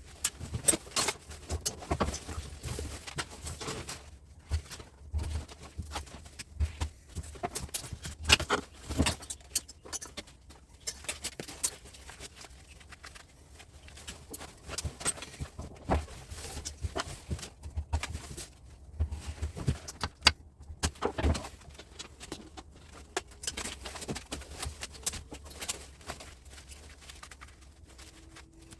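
Rusty knife cutting and scraping insulation off copper wire: irregular scrapes, clicks and small knocks as the wire is worked and handled.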